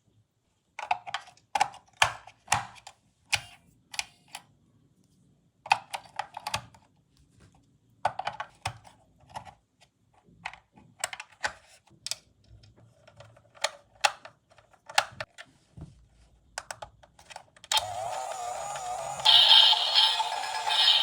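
Hard plastic toy parts and packaging being handled, in bunches of sharp clicks and crackles. About three seconds before the end, a tinny electronic tune with no bass starts playing.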